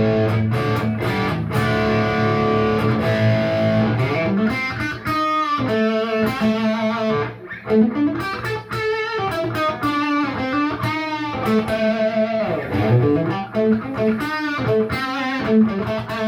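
Electric guitar with a Wolfetone P90 bridge pickup, volume knob at full, played through a Peavey JSX amp and overdriven. It plays ringing chords for about four seconds, then a lead line with string bends and vibrato.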